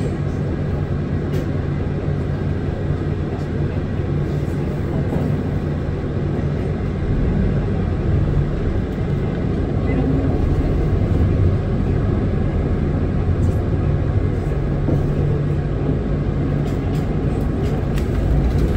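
Cabin sound of a Hino Blue Ribbon City Hybrid city bus under way: a steady low drone from the diesel-hybrid drivetrain over road noise. It grows a little louder about seven seconds in, with a few faint rattles and ticks.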